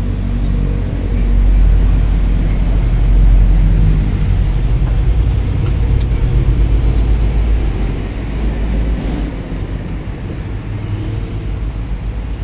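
Mitsubishi PS100 truck's diesel engine running, its rumble swelling a little in the first few seconds and easing off after about eight seconds. A faint high squeal slides down in pitch about halfway through.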